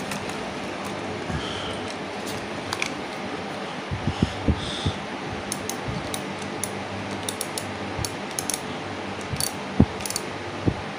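Scattered small clicks and a few light knocks from a metal spinning reel being handled and turned over in gloved hands, over a steady background hum.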